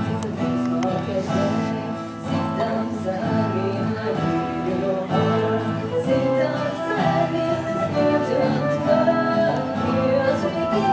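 Acoustic folk tune played by a steel-string acoustic guitar and a nylon-string classical guitar together, with plucked notes ringing steadily.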